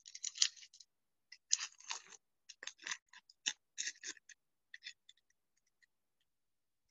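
A trading card pack's foil wrapper crinkling and being torn open, heard as a string of short, scratchy crackles that stop about six seconds in.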